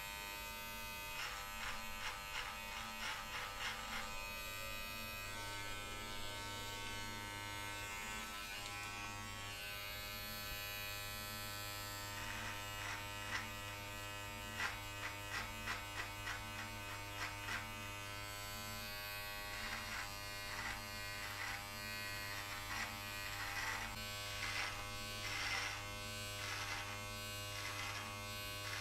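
Electric pubic-hair trimmer running with a steady buzz while it is drawn through a thick beard. It makes runs of short, quick clipping sounds in strokes as the blade cuts the hair.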